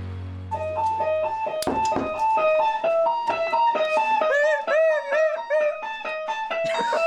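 Guitar music: a quick run of plucked single notes that starts about half a second in, with notes bent up and back down in the middle of the phrase.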